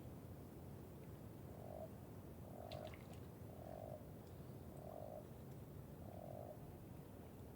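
A frog croaking five times, short even notes about a second apart, over a low steady rushing background. A brief high bird chirp comes about three seconds in.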